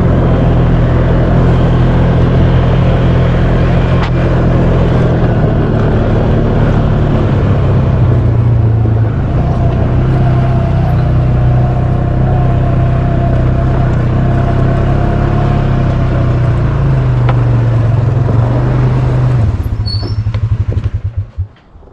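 Kubota tractor's diesel engine running steadily, its speed shifting a few times, then shut off near the end, its firing slowing to a stop.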